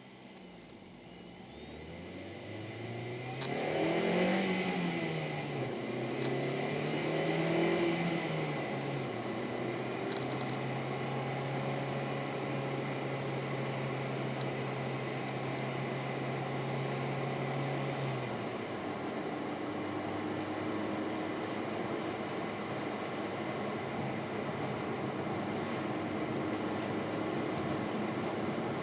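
Mazda 3 (BK) on the move with a strange high whistle whose pitch rises and falls with the engine revs as the car pulls away and shifts gear, then holds a steady note at cruising speed. Road and engine noise run underneath.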